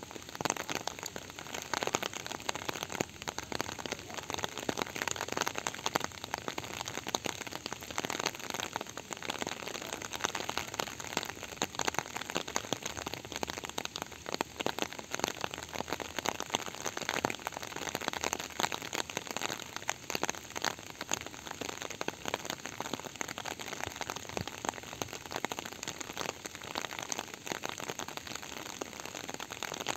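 Steady rain falling: a dense patter of individual drops over an even hiss.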